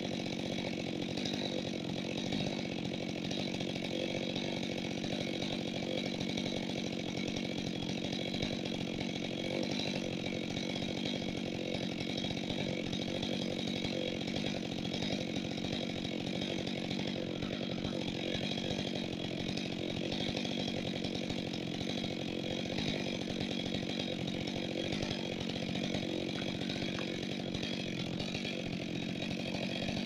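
A chainsaw idling steadily, its engine ticking over without cutting.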